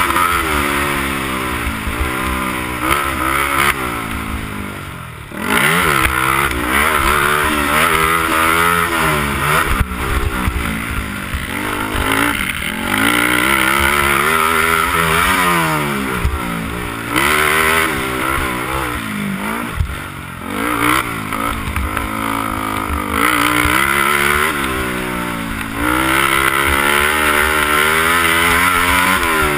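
Honda TRX300EX quad's single-cylinder four-stroke engine at race pace, revving up and falling back over and over as the rider works the throttle and shifts. It drops off briefly about five seconds in and again around twenty seconds, then picks up again.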